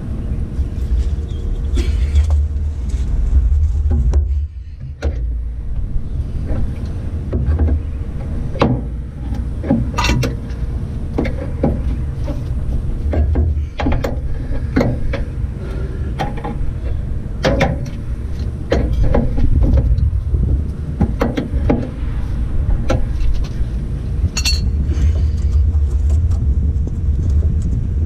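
Hand tools working on a coolant filter head's metal fittings: irregular metallic clicks and clinks of an open-end wrench and a ratchet, over a steady low rumble.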